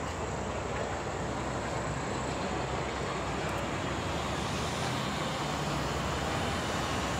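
A semi truck's diesel engine idling steadily, a low, even rumble under a wash of outdoor noise.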